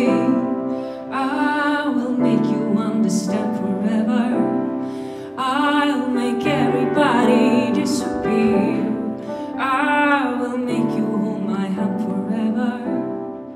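A woman singing a slow song into a microphone over keyboard accompaniment. Her held notes waver with vibrato, and the music fades out at the end.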